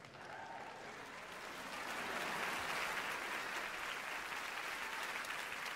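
Theatre audience applauding, swelling over the first couple of seconds and then holding steady.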